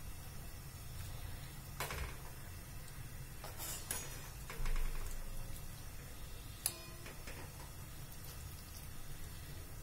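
A few scattered light clicks and knocks over a steady low hum.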